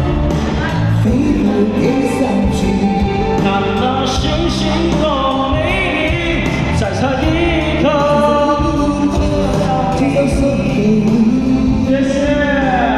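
Pop music with singing: a sung melody, held and sliding notes, over a full musical backing.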